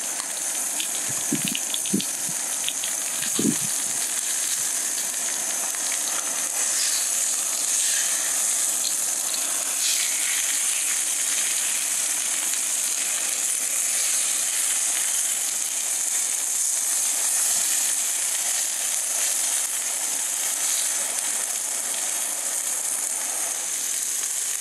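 A whole rainbow trout frying in a small non-stick pan on a Jetboil gas stove, sizzling steadily as its skin crisps, with a few light scrapes of a spatula in the pan.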